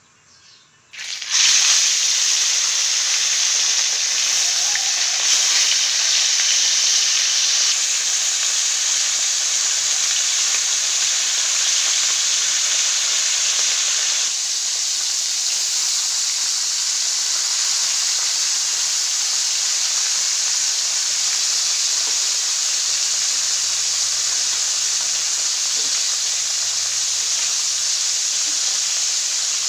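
Fish frying in hot oil in a wok: a loud, steady sizzle that starts suddenly about a second in.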